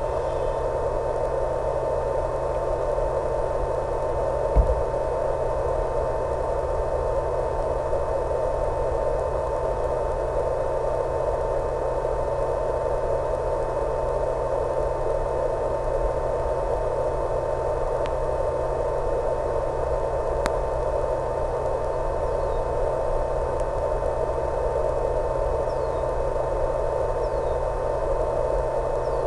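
Steady static hiss with a constant high tone and a low hum, unchanging as the plane flies: the noise of an analog FPV video link's audio channel rather than the plane's motor. A single thump about four and a half seconds in.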